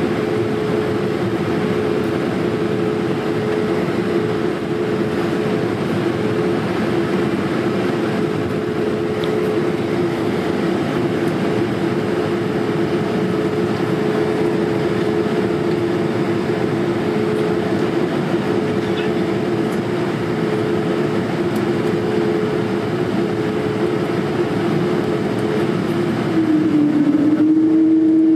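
Airbus A220's Pratt & Whitney geared turbofan engines at idle thrust while the jet taxis, heard inside the cabin as a steady rumble with two steady tones. Near the end the tones shift and the sound grows louder as the engines spool up.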